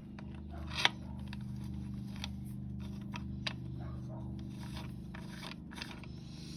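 Small irregular metallic clicks and scrapes of hand work with an Allen key fitting a paddock-stand bobbin bolt, with one sharp click about a second in. A steady low hum runs underneath.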